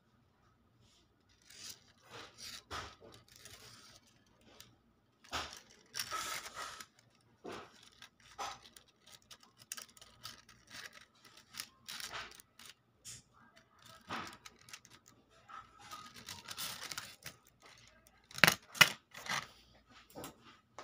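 Thin gold bangles clinking and jangling against one another as they are handled, with paper rustling under them. Two sharper, louder clinks come near the end.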